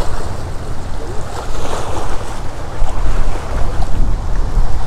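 Wind buffeting the microphone, gusting harder in the second half, over the rush of choppy lake water flowing out past a concrete bank.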